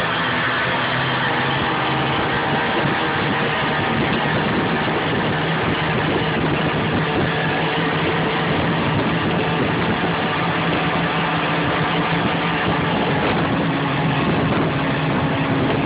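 Snowmobile engine running steadily under way, its pitch holding level with no sudden changes.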